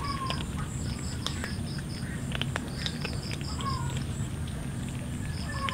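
Cats crunching dry kibble: scattered sharp clicks of chewing over a low steady background noise. A high-pitched chirping in runs of about six pulses a second comes and goes behind it.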